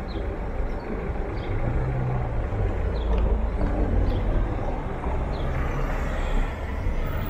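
City street traffic: car engines running and passing, with a low rumble that swells in the middle as a vehicle goes by.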